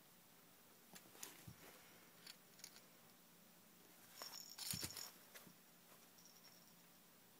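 Faint clicking and rattling of a baby play gym's hanging plastic toy and rings as they are tugged and mouthed, with a louder jingling burst about four to five seconds in.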